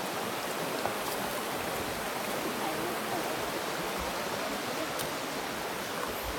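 Stream running over rocks, a steady sound of flowing water.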